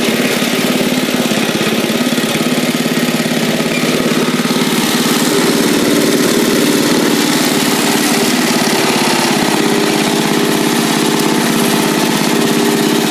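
Bolens lawn tractor engine running steadily.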